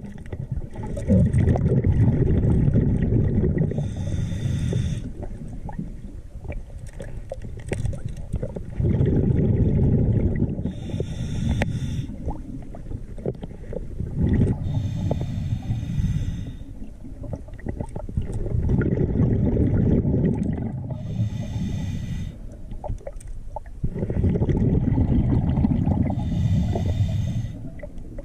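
Scuba diver breathing through a regulator underwater: a long bubbling exhale rumble followed by a short hissing inhale. The cycle repeats about every five seconds, five times.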